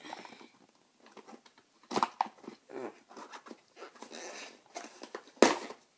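A small cardboard box being forced and torn open, with crackling and rustling of the packaging. A sharp knock comes about two seconds in and a louder one near the end.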